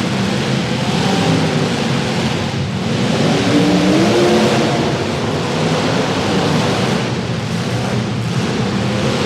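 Several demolition derby cars' engines running loud and revving, with the pitch rising about three seconds in.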